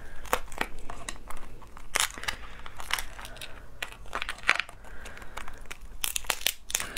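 A cooked Chinese mitten crab (hairy crab) being cracked and pulled apart by hand: a run of irregular sharp cracks and crackles as the shell and legs break.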